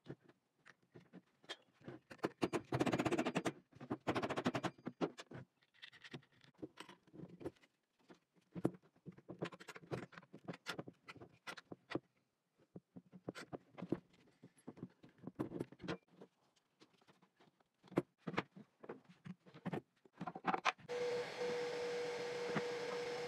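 Scattered small clicks, taps and rattles of hands handling a plastic-bodied trim router, plywood plates and a wrench, with a denser stretch of scraping and knocking a few seconds in. Near the end a machine starts running with a steady whir and a single held whine.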